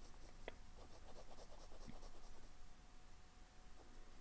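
Pilot Custom 74 fountain pen with a medium nib writing on planner paper: faint, light scratching of the nib, with a couple of small ticks.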